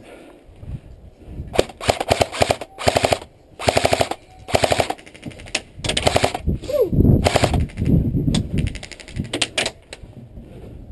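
Airsoft guns firing a series of short full-auto bursts, about eight rapid strings of shots spread over several seconds.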